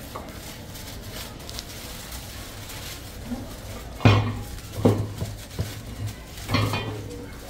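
Aluminium foil covers crinkling as they are pulled off clay biryani pots, with four knocks of the clay pots in the second half, the first, about four seconds in, the loudest.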